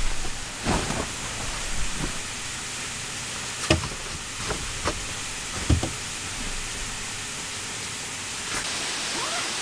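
A puffy sleeping bag being spread out over a mattress: a few short rustles and soft knocks as it is handled, over a steady hiss.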